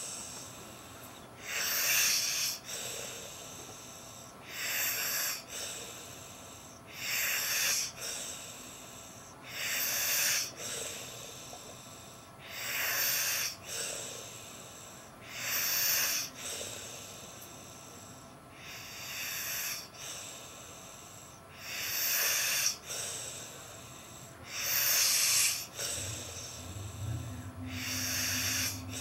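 A man snoring in deep sleep: loud, wheezy, hissing breaths, about one every two and a half to three seconds. A low steady hum comes in near the end.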